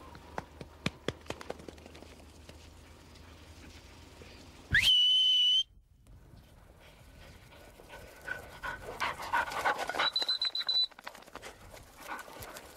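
Two blasts on a dog-training whistle: a loud one about five seconds in that slides up onto a steady pitch and holds for about a second, and a shorter, higher one about ten seconds in. Just before and during the second blast, a dog pants in quick strokes.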